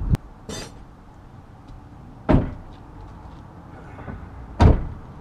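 Two loud thumps a little over two seconds apart, each ringing out briefly, after a sharp click and a short rattle near the start: things knocking or shutting while tools are fetched.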